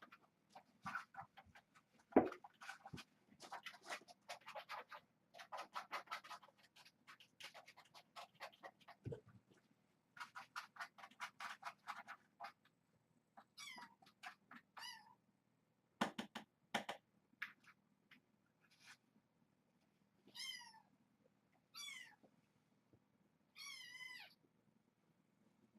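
Kittens eating canned wet food: quick wet smacking and lapping clicks through the first half, with a few sharp knocks. In the second half come about five short, high-pitched kitten mews.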